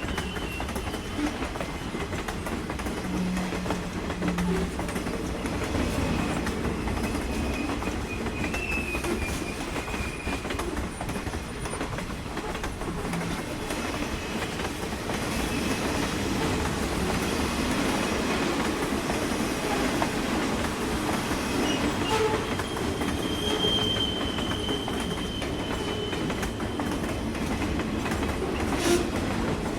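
Train passing close by: a steady rumble of the cars rolling on the rails, with a few brief high wheel squeals.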